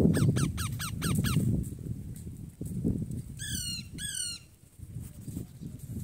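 Rose-ringed parakeets (Indian ringnecks) calling: a quick run of about seven short, falling chirps in the first second and a half, then two harsh squawks a little past the halfway point.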